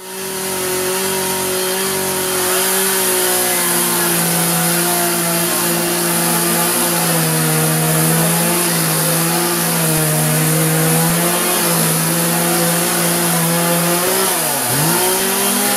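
Two-stroke gas chainsaw (Poulan Pro, 18-inch bar) running at high revs while cutting through a log, its pitch wavering as the chain loads up in the wood, with a sharp brief dip in revs near the end that recovers at once. A steady high hiss runs underneath.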